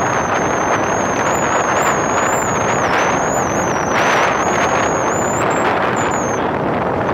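Steady wind rush and road noise from a vehicle moving along a paved road, with a thin high whine that wavers in pitch and stops a little before the end.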